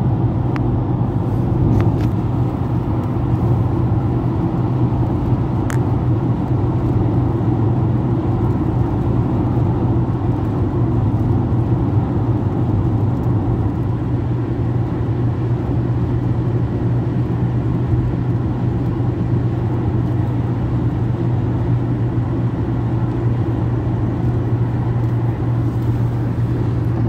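Steady rumble of a moving car heard from inside its cabin: an even low drone of road and engine noise that holds the same level throughout.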